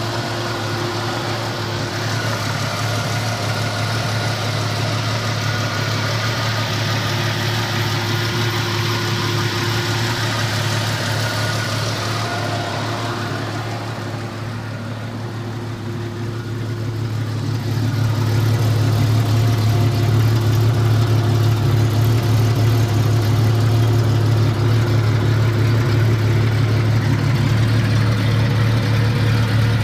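Jeep Cherokee XJ engine running steadily at low revs. It eases off about halfway through, then pulls harder and runs louder for the rest.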